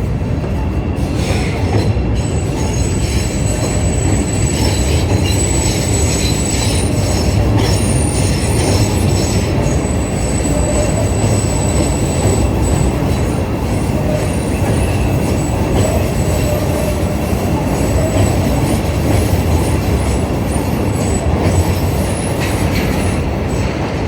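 Chicago 'L' train running on the elevated Lake Street tracks, a steady loud rumble of steel wheels on rail. A thin high wheel squeal holds through the first half.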